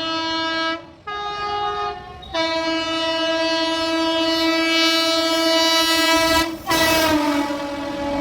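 Horn of a high-speed express train passing through a station: a short blast, a second slightly higher-pitched one, then a long blast of about four seconds. Near the end the horn drops in pitch as the train rushes past, with the noise of the train running through.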